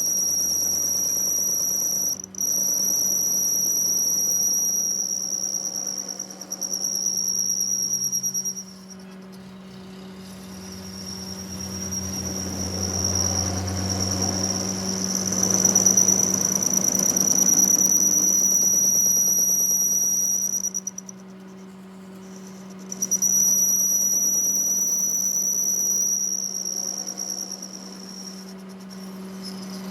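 A steady high-pitched machine whine over a low steady hum. The whine stops and starts again twice, and a rougher grinding-like noise swells up in the middle.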